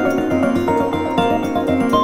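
Instrumental action production music with a fast, steady beat under sustained keyboard and synthesizer notes.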